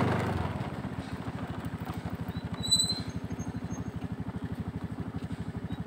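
Small motorcycle engine idling with an even putter of about ten beats a second, settling down from a higher speed just after the start. A brief high chirp sounds about two and a half seconds in.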